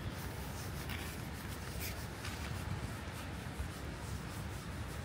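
Steady outdoor background noise with a low rumble, and a few soft scuffs about one and two seconds in.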